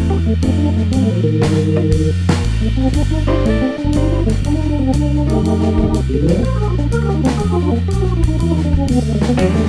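Background music: an organ-led instrumental band track with guitar, bass and a steady drum beat.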